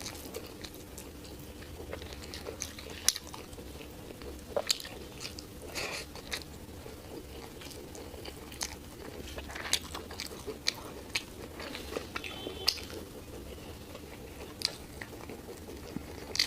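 Close-miked eating sounds: a person chewing and biting into curry and rice, with irregular wet mouth clicks and small crunches.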